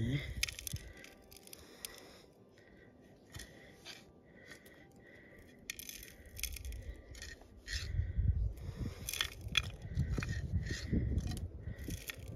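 Dirt and stones scraped and rattled while a metal-detector target is being dug out, with scattered sharp clicks and short steady tones coming and going from the gold detector. A low rumble joins in the second half.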